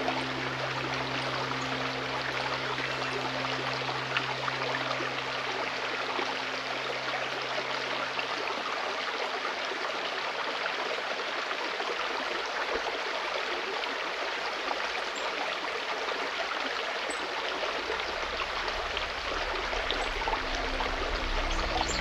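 Stream water flowing steadily. A soft, low held music drone underneath fades out about halfway through and comes back near the end.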